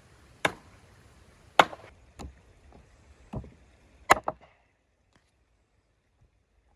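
Cleaver chopping through a rack of lamb into chops on a wooden board: six sharp strikes over about four seconds, the last two in quick succession.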